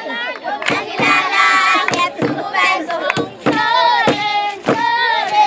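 A group of girls singing a Zulu song together in chorus, with hand claps keeping the beat about twice a second.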